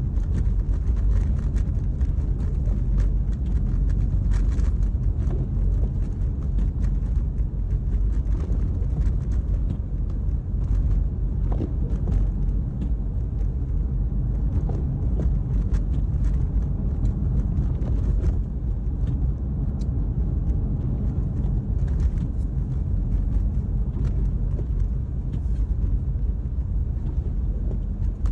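Car driving on a snowy road, heard from inside the cabin: a steady low rumble of tyres and engine with scattered light ticks.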